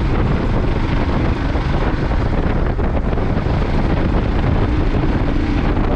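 Wind rushing over the microphone of a moving vehicle, a steady buffeting roar over road noise.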